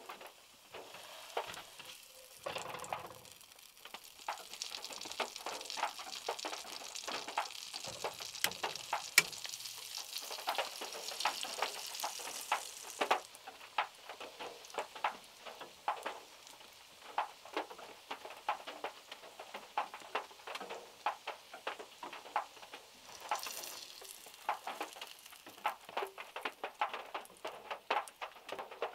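Rain and large drops falling from the trees, pattering irregularly on a small car's roof. A steadier hiss of heavier rain comes in from about four to thirteen seconds in.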